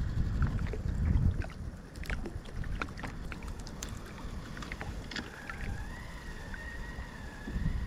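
Sea kayak ambience: wind rumbling on the microphone, with scattered small clicks and taps of fishing gear. A faint, thin, slightly wavering whistle comes in about five seconds in.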